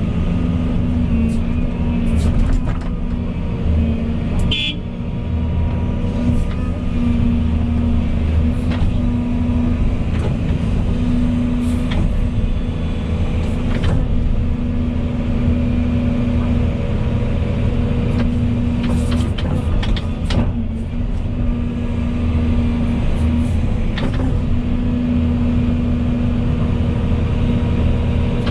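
Volvo EC220E excavator's diesel engine running steadily under working load, with scattered sharp clicks and knocks from the digging.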